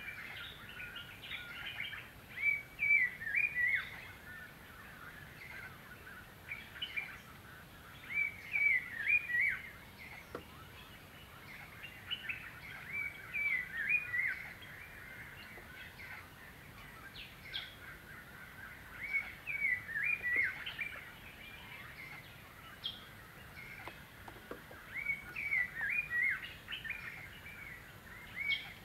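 Birdsong: short phrases of quick up-and-down chirping notes, repeated every few seconds over a faint steady background hiss.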